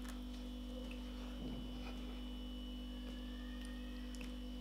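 Steady low electrical mains hum with a thin high whine over it, and a few faint clicks and smacks of someone chewing food with her mouth closed.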